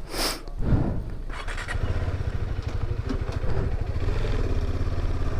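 Motorcycle engine running steadily with an even low rumble, settling in about a second in after a brief rush of hissing noise.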